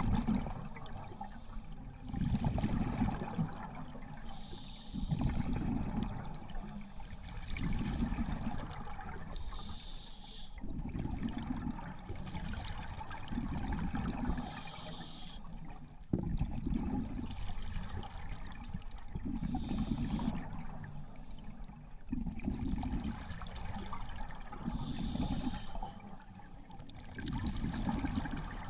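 Scuba diver breathing through a regulator underwater: a hiss on each inhale, then a rush of exhaled bubbles, in a slow, regular cycle that repeats every few seconds.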